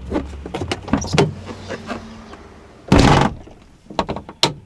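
Van door being worked against a newly installed lock: a run of clicks and knocks, with one loud clunk about three seconds in and two sharper knocks near the end.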